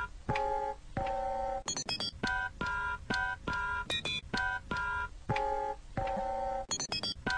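Electronic beep tones of a few different pitches, three or four a second, in a short pattern that repeats over and over. Brief high chirps come in about every two seconds.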